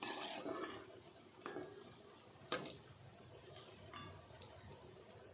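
A few sharp metal clinks of a spoon or slotted ladle against a kadhai, over a faint low haze.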